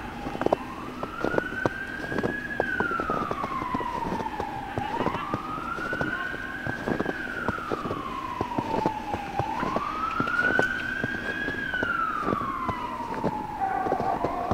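Emergency-vehicle siren wailing, its pitch sweeping slowly up and then down about every four and a half seconds, three full cycles, over irregular footsteps in snow.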